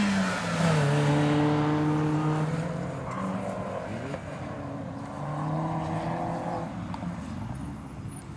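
Mini Cooper engine revving hard as the car accelerates through an autocross cone course. The engine note rises and drops with throttle lifts and gear changes, and is loudest in the first couple of seconds before fading as the car moves away.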